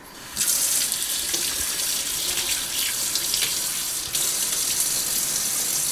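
Kitchen faucet turned on about a third of a second in, its stream running steadily into a stainless steel sink as a cleaned squid body is rinsed under it to wash out the slime and ink.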